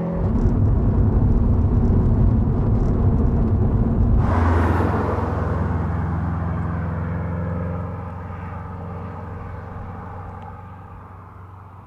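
Subaru WRX/STI hatchback's turbocharged flat-four running through a titanium cat-back exhaust, driving away with a deep, low exhaust note. About four seconds in the sound surges louder and hissier, then it fades steadily as the car pulls into the distance.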